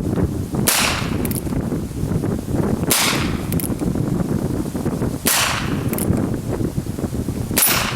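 Heritage Rough Rider .22 LR single-action revolver fired four times, about two and a half seconds apart, each shot a sharp crack, over a steady low rumble.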